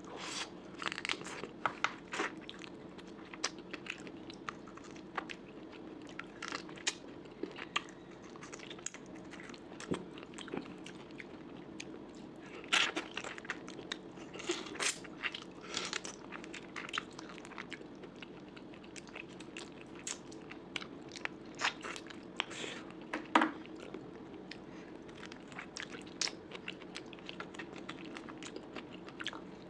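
Close-miked mukbang eating of curry, rice and meat: irregular chewing with sharp crunches and bites scattered throughout, the loudest crunches about 13 s and 23 s in.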